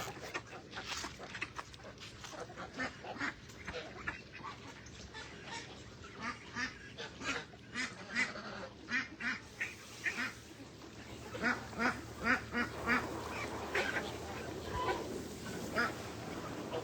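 A flock of domestic ducks quacking, many short calls in quick succession and overlapping, getting busier and louder about eleven seconds in.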